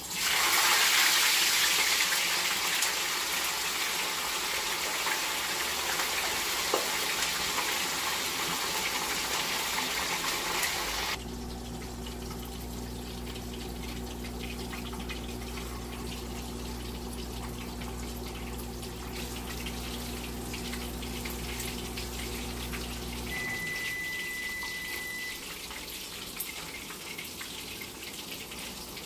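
Marinated whole fish frying in hot oil in a skillet: a loud sizzle as the fish goes into the pan, dropping abruptly about eleven seconds in to a quieter steady sizzle. A low steady hum runs under the sizzle for about twelve seconds, and a short high tone sounds later on.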